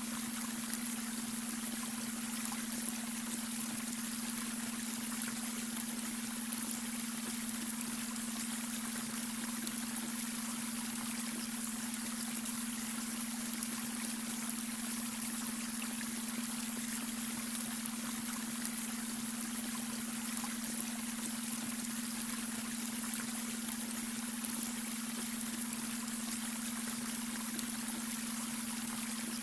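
Babbling brook flowing steadily, with a constant low hum of a beta-wave brainwave tone mixed under the water.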